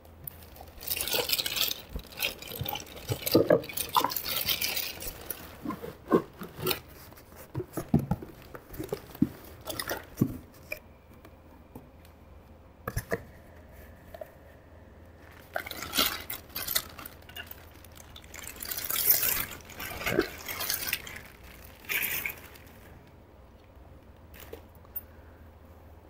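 Clear plastic bag crinkling and rustling in bursts as a ceiling fan motor is pulled out of it and out of a cardboard box, with scattered light knocks from handling.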